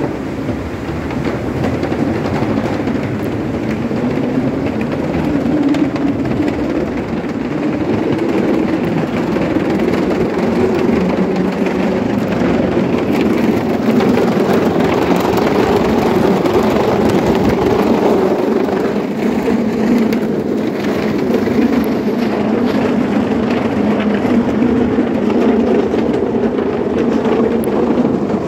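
Skateboard wheels rolling over a wooden plank boardwalk: a steady, loud rolling rumble with a fine clatter as the wheels cross the plank joints.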